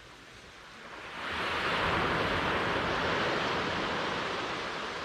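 Ocean surf: a wave breaks about a second in, and its wash carries on, slowly easing.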